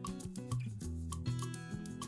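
Background music with a steady beat and a bass line, lightly Latin in feel.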